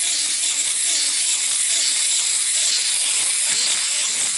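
Loud, steady hiss like static.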